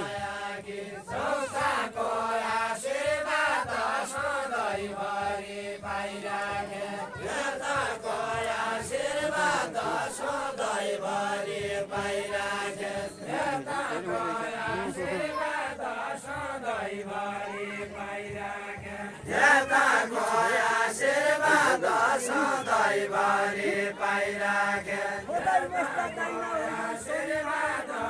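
Deuda, the Far-Western Nepali folk song, sung as a group chant by a line of men dancing, with several voices on one repeated melodic line. The singing grows louder about two-thirds of the way through.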